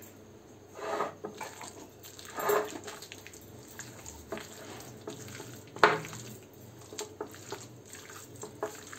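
Bare hand squishing and kneading raw chicken pieces in a wet spice-and-egg marinade in a glass bowl, with a few short squelches and one sharp click near the middle.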